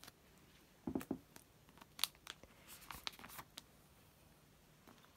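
Faint plastic rustling and small clicks as a photocard in a plastic sleeve is slid into a binder's plastic pocket page, with a soft knock about a second in.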